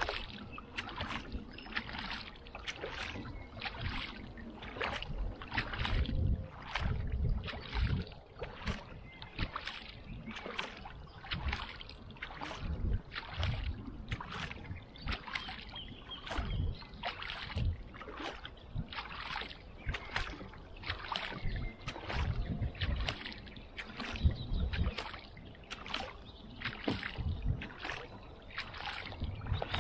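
Kayak paddle strokes in calm lake water, the blades dipping in and pulling through on alternate sides in a steady rhythm of about one splash a second, with water dripping off the blades.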